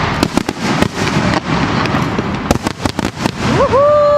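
Aerial fireworks crackling and popping in a dense run of sharp bangs. Near the end a long pitched cry starts, rising and then holding steady.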